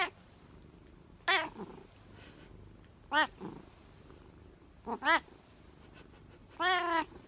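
Domestic cat meowing: short calls a second or two apart, a quick pair about five seconds in and a slightly longer meow near the end.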